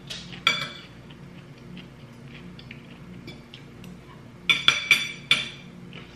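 Metal spoon and fork clinking against a ceramic plate while eating: one ringing clink about half a second in, then a quick run of four clinks near the end.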